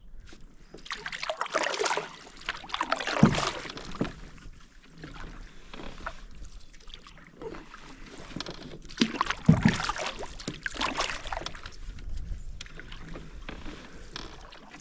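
Canoe paddling: water splashing and swishing with the paddle strokes, in two louder spells, each with a sharp knock.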